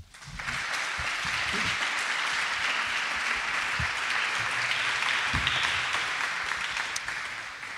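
Audience applauding at the end of a lecture: steady clapping that swells up about half a second in and fades away near the end.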